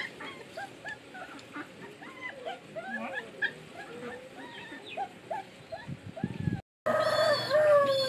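Dogs whimpering and yipping: many short, high cries in quick succession, overlapping one another. After a brief break near the end, a longer call falling in pitch takes over.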